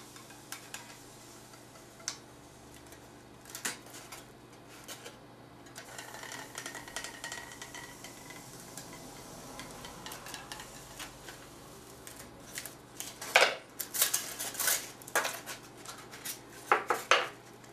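A handmade hot-wire cutter melting its way through a block of styrodur foam along a template, which is nearly silent: only a faint hiss with a few soft ticks. From about thirteen seconds in, a run of sharp clicks and knocks as the cut foam pieces are handled and pulled apart.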